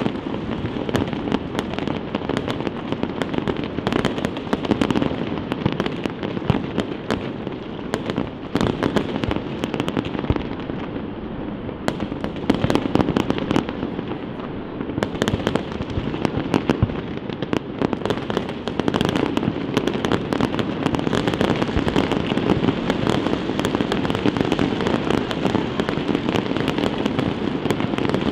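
Fireworks display going off without pause: a dense run of sharp bangs and crackles over a continuous din of overlapping explosions.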